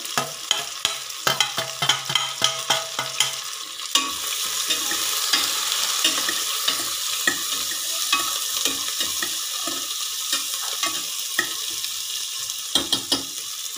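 Sliced onions frying in hot ghee in a stainless steel pressure cooker, stirred with a metal spatula that clicks and scrapes against the pot. The sizzle becomes a steady hiss about four seconds in.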